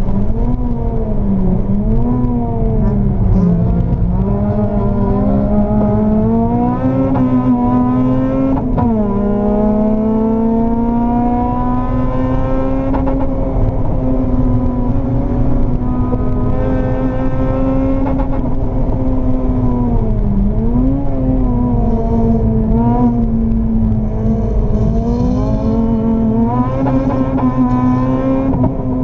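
Honda Civic Type R EP3's K20 2.0-litre four-cylinder engine heard from inside the cabin at full throttle on track. The revs climb through the gears with a sharp drop at an upshift about nine seconds in, then climb again and hold high for several seconds, before dipping and swinging up and down in the last third.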